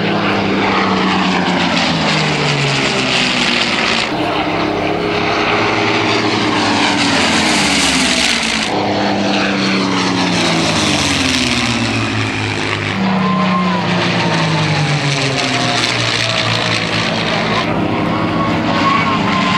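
Rolls-Royce Merlin V12 engines of a Supermarine Spitfire Mk IX and a P-51D Mustang, the pair flying past close together. The engine note falls in pitch as they pass, then rises again as they come round, several times over.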